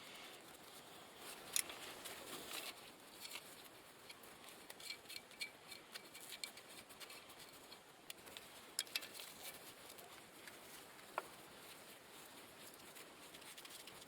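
Faint, scattered light clicks and taps, with one brief squeak about eleven seconds in.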